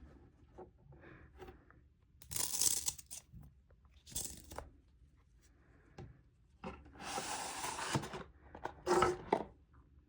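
Packaging being torn open by hand: four noisy tearing bursts about two, four, seven and nine seconds in, the one at seven the longest.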